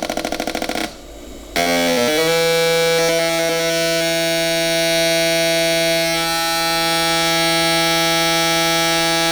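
Fuel injector test bench: injectors pulsed electrically at speed make a fast, even buzz for under a second, then stop. After a brief lull a steady electric drone sets in and holds, the bench pressurising the cleaned injectors for a drip-tightness test.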